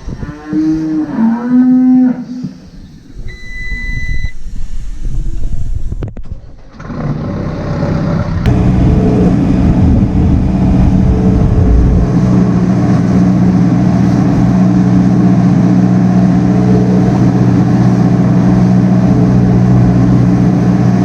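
Dairy cows mooing for the first couple of seconds, then a single steady electronic beep. From about seven seconds in, a farm machine's engine starts to be heard, builds up and runs on with a steady low hum.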